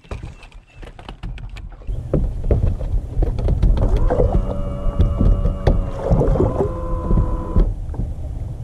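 A steady electric-motor whine from the bass boat that holds for about three and a half seconds and then cuts off, over a low rumble with scattered knocks.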